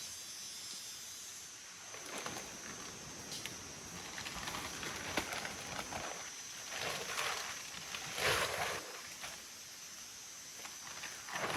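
Tropical forest ambience: a steady, high-pitched insect drone over a constant hiss, with several louder swells of broad noise, the strongest about eight seconds in.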